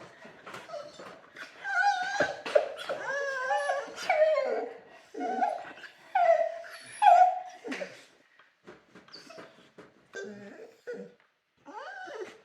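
A Borador dog shut in its kennel crate, howling and whining in protest at being confined. Wavering, pitched howls run loudest from about two to eight seconds in, then give way to quieter, shorter whines and yips.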